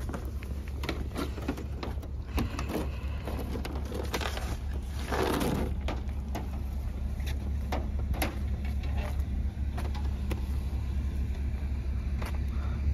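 A tow truck's engine idling with a steady low hum, under scattered clanks and knocks of the wheel-lift and chains being fitted to a car's wheels. A brief rushing noise swells up about five seconds in.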